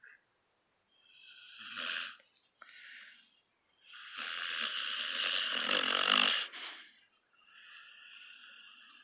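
Puppy snoring in its sleep: short snores about two and three seconds in, a long, louder snore from about four seconds to six and a half, then a softer one near the end.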